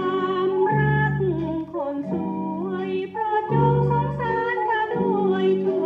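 A Thai popular song playing from a vinyl LP on a turntable: a woman singing long, wavering held notes over band accompaniment.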